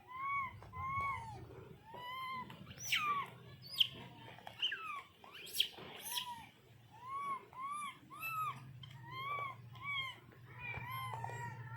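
Repeated short, arched animal calls, about two a second, with a few sharp high squeals in the middle.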